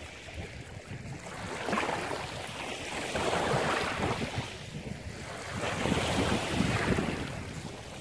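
Small sea waves washing up a pebble shore and draining back, the noise swelling and fading about three times.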